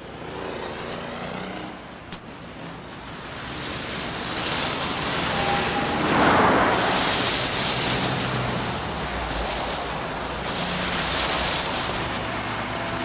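Street traffic: cars driving past one after another, the rush of each swelling and fading, loudest about six seconds in and again about eleven seconds in.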